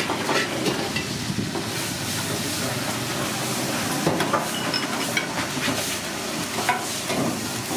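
Steady sizzling of food frying, with a few short sharp clicks and knocks of kitchen utensils scattered through it.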